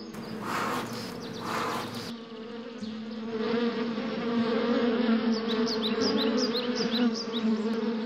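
Two hissing puffs from a beekeeper's bellows smoker, then the steady hum of a mass of honeybees on an opened hive frame. Short high chirps sound over the hum in the second half.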